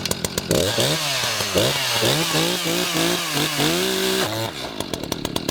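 Two-stroke chainsaw idling, then revved to full throttle about half a second in as the chain bites into safety chaps. The engine pitch rises and wavers for about three and a half seconds, then drops back to idle once the chaps' fibres wrap the chain and jam the drive.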